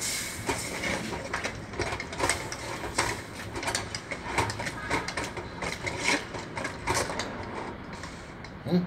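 Steel ladle stirring a thick curry masala in an aluminium kadai, scraping and clinking against the pan in quick irregular clicks, a few each second.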